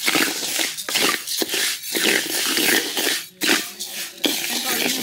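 Rice being dry-roasted in a pan and stirred with a spatula: a steady rattle of grains and repeated scraping strokes against the pan.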